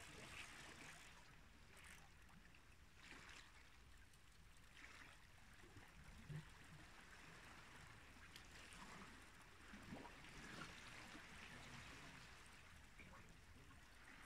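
Near silence: a faint, even wash of sea water at the shoreline over a low, steady rumble.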